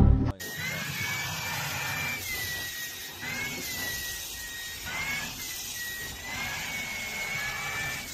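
A short loud thump at the very start, then a steady whirring electric motor with a high whine that wavers gently up and down in pitch.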